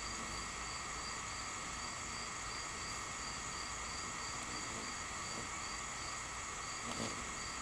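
Steady chorus of insects chirring in the woods, several high-pitched tones held together, one of them pulsing at an even rate. A brief click sounds near the end.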